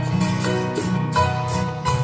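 Background music: an instrumental track with plucked, guitar-like notes over a steady bass.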